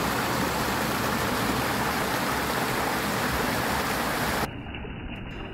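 Small forest waterfall and mountain stream rushing steadily over rocks. About four and a half seconds in it gives way to a quieter, muffled rush of water.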